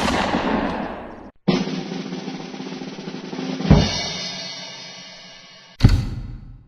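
Stock sound effects played one after another, drum-like: a sharp hit dying away over about a second, then a longer percussive stretch with a strong hit about halfway through, and another sharp hit near the end.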